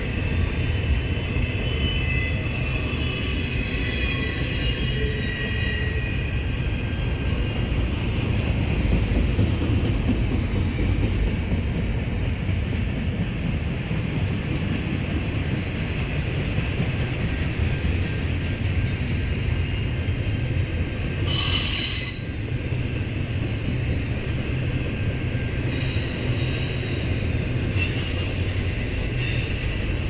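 Intermodal freight train's container well cars rolling past at speed: a steady rumble of wheels on rail, with faint wavering wheel squeal over the first several seconds and one brief, louder high-pitched squeal about two-thirds of the way through.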